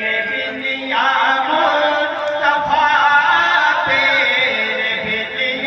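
Music: a song with a voice singing over a sustained accompaniment.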